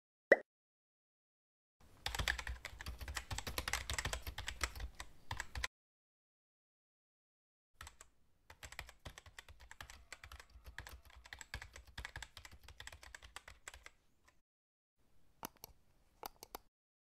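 Keyboard typing clicks in two rapid runs of a few seconds each, then a few last taps near the end. A short pop comes just after the start.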